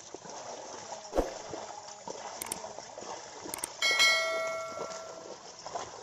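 Bullocks and a wooden levelling plank sloshing through flooded paddy mud, with a thud about a second in. A metal bell rings once about four seconds in, its tone lingering and fading over a second or so.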